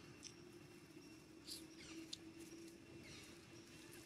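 Faint high-pitched animal squeaks, each sliding down in pitch, a few times, with a few soft clicks and a steady low hum underneath.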